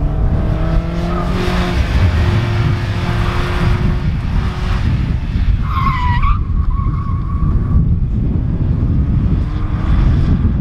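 A 2001 Mazda Miata NB's four-cylinder engine revving as the car is driven hard, rising and falling in pitch. About halfway through the tyres squeal for about two seconds, a squeal that bends in pitch and then holds: the tyres are at the limit of grip.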